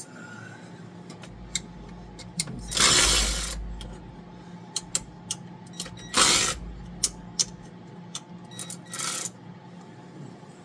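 Metal parts and hand tools being handled, with light clicks and taps and three louder clattering knocks about three, six and nine seconds in.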